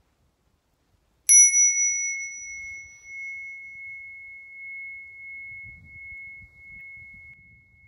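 A small handheld brass bowl bell on a metal handle, struck once with a metal rod about a second in, then ringing on with a clear high tone that slowly wavers and fades. Its higher overtones die away within a couple of seconds.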